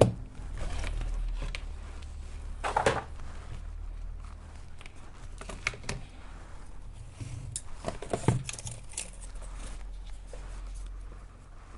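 Hands handling a rebuilt e-bike battery pack and its plastic case on the workbench: scattered light clicks, taps and rustles, with louder scraping knocks about three seconds in and again about eight seconds in, over a low steady hum.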